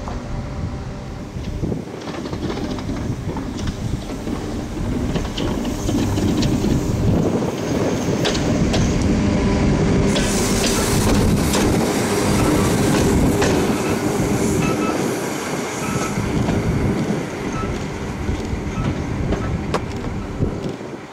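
A train passing close by, its wheels clattering over the rail joints. It grows louder about six seconds in and stays loud through the middle, then eases off.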